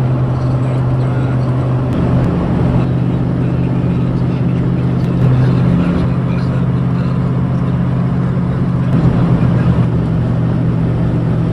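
A vehicle engine running steadily, its drone shifting slightly in pitch a few times.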